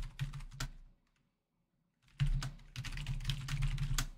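Typing on a computer keyboard: a short burst of keystrokes, a pause of over a second, then a longer run of rapid keystrokes.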